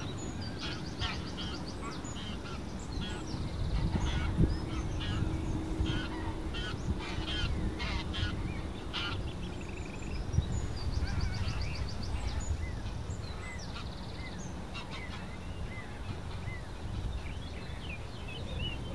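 Greylag geese honking in flight as a flock passes over, the calls busiest from about three to nine seconds in and again briefly after eleven seconds. A steady low rumble lies underneath.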